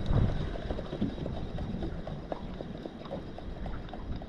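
Wind rumbling on the microphone, fading slightly, with a few faint clicks and knocks.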